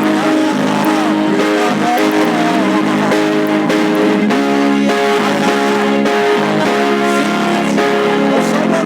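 Church praise music with strummed guitar playing a steady accompaniment.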